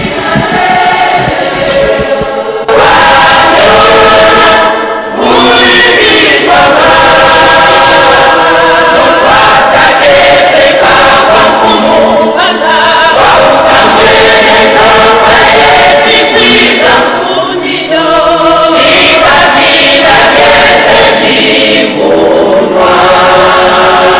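Large church choir of men and women singing together in phrases, swelling in strongly a couple of seconds in and carrying on with short breaks between lines.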